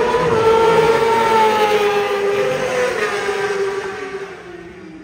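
1000cc superbike engine at high revs passing the grandstand on the main straight, its note sliding down in pitch and fading away near the end as the bike pulls away.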